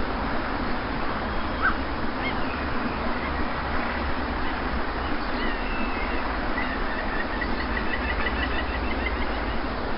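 Steady rush of sea surf with faint bird calls over it: scattered chirps, and a quick run of rapid notes about seven seconds in.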